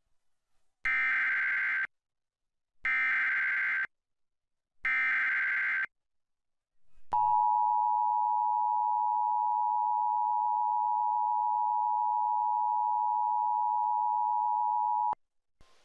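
Emergency Alert System broadcast alert: three one-second bursts of buzzy digital header data tones with short gaps between them, then the steady two-tone attention signal held for about eight seconds and cut off sharply.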